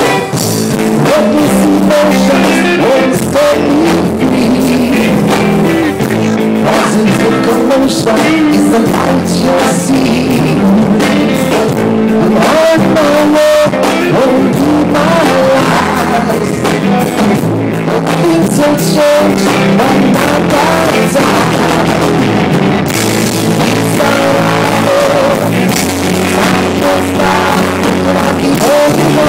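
Live rock band playing loud, electric guitar over a drum kit, heard close to a PA speaker.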